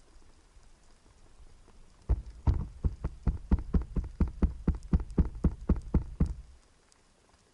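A rapid, even train of about twenty short underwater knocks, roughly five a second, starting about two seconds in and stopping abruptly after about four seconds.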